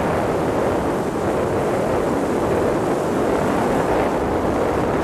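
Motorboat underway: a steady rush of wind on the microphone mixed with engine and water noise.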